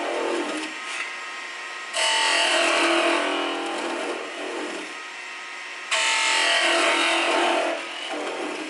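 Small wood lathe running while a hand-held turning tool cuts a spinning wooden spindle. The tool bites in twice, about two seconds in and again about six seconds in, and each loud cutting pass lasts about two seconds over the lathe's steady running sound.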